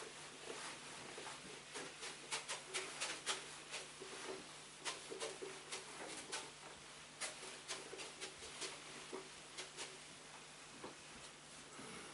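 Felt whiteboard eraser being rubbed across a whiteboard: a quick, irregular run of short squeaks and scrubbing strokes.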